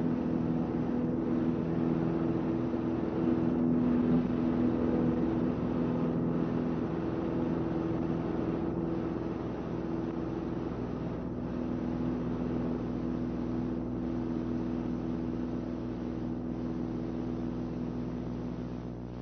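Single-engine light airplane's piston engine and propeller running at takeoff power, a steady drone that grows a little fainter in the second half as the airplane climbs away.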